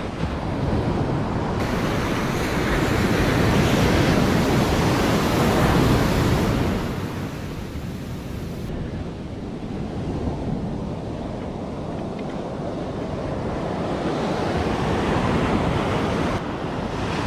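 Ocean surf breaking and washing up a sandy beach, with wind buffeting the microphone. The wash swells louder a couple of seconds in and eases off again after about seven seconds.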